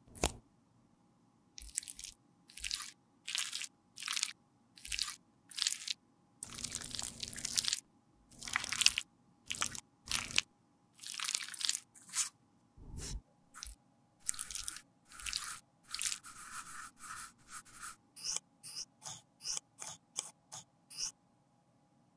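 Gloved hands handling lipstick packaging and tearing open the paper wrapper of an alcohol prep pad, making a run of short, crisp crinkling and scraping noises with brief pauses between them. Near the end comes a quicker run of small ticks.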